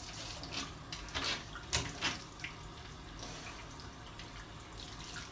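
Bathtub tap running in a steady stream while a Rottweiler drinks from it, with a few louder sudden splashy laps bunched about one to two seconds in.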